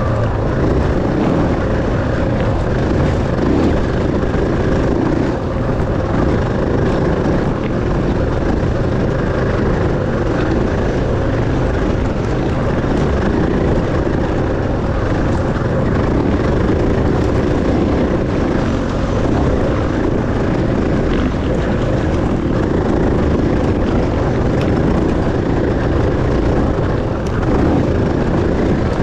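Enduro dirt bike engine running steadily at speed, mixed with a dense rushing noise.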